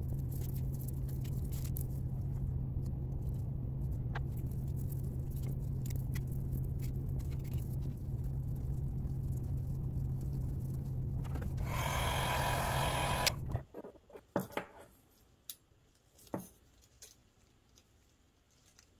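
A small electric machine cleaning a brass clock wheel runs with a steady low hum. It turns into a louder hiss for about a second and a half, then cuts off suddenly about 13 seconds in. A few light clicks and taps of the metal part being handled follow.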